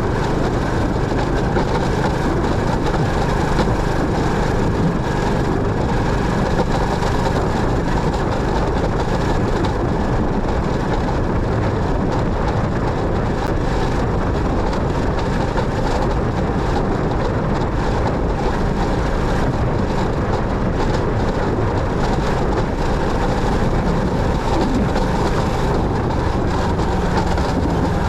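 Motorcycle being ridden along a road, giving a steady mix of engine and road noise at an even level throughout.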